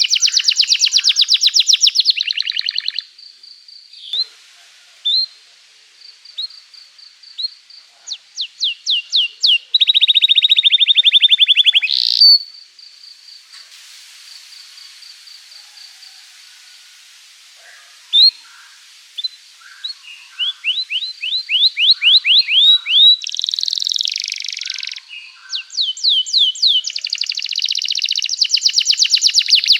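Domestic canary singing in long phrases of fast, high trills and rolls. Between them come single chirps spaced apart, speeding up into rapid trills again, and in the middle there is a thin, steady held whistle.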